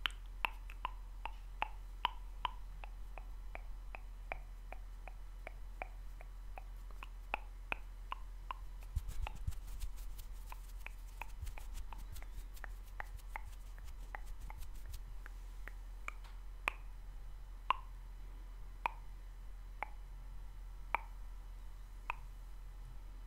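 Close-miked mouth sounds: a long string of short wet clicks and pops from the lips and tongue, about two or three a second at first and more spaced out later. About nine seconds in there is a brief run of finer crackling clicks.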